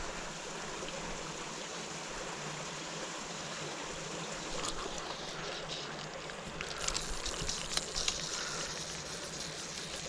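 Steady low outdoor hiss with scattered light ticks and rustles in the second half as the fly rod is cast and its line handled.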